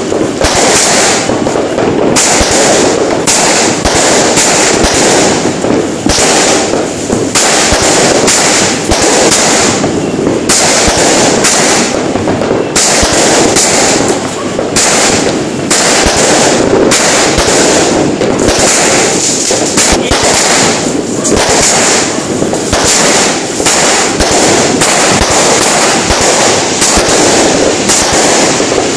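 Fireworks going off nonstop and close by: a dense, loud barrage of bangs and crackling from aerial bursts, with no gap.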